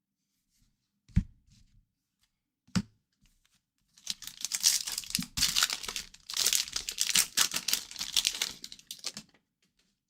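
Two light knocks, then about five seconds of crackly tearing and crinkling as a hockey card pack's wrapper is ripped open and crumpled.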